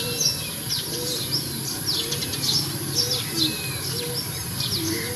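Outdoor birdsong: quick, high, downward-sweeping chirps several times a second over a low call repeated about once a second, with a steady high hiss behind.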